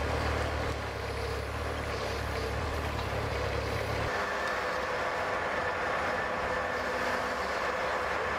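Truck-mounted tree spade working, its engine and hydraulics running steadily while its curved steel blades sit in the soil around a tree's root ball. A low rumble drops away about four seconds in, leaving a steady higher whine over the machine noise.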